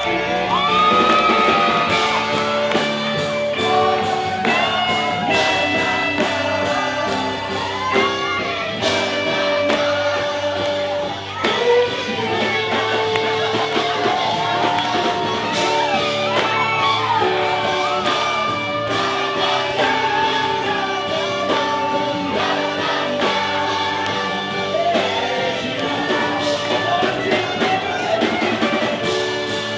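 A song playing: a lead voice singing over guitar and other instruments, starting abruptly.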